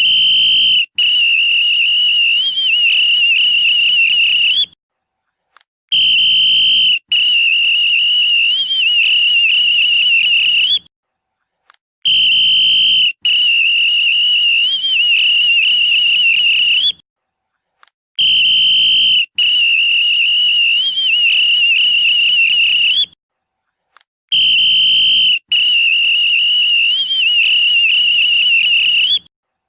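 Police whistle blown in a repeating pattern: one short blast, then a long blast of about four seconds with a warbling trill, then a pause of about a second. The pattern comes about every six seconds, five times over.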